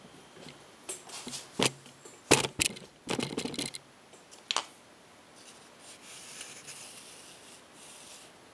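Camera handling noise as the camera is moved to a new position: a few sharp clicks and knocks, the loudest about two seconds in, with bursts of rubbing and scraping between them, then fainter rustling.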